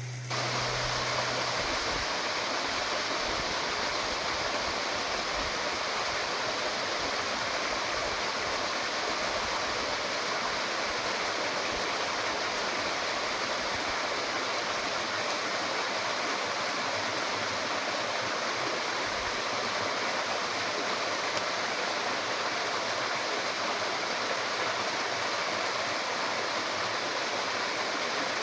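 Waterfall and the stream below it: a steady, even rush of falling and running water.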